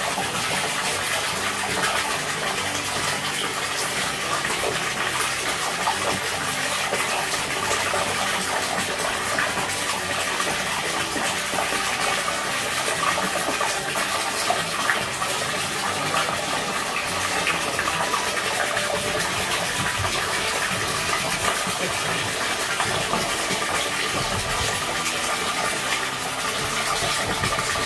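A jet of water pouring steadily into a partly filled inflatable paddling pool, splashing onto the water surface.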